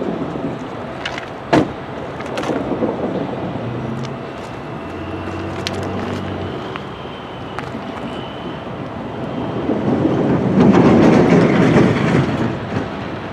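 A vehicle passing, its noise swelling to its loudest about ten to twelve seconds in, with a sharp knock about a second and a half in.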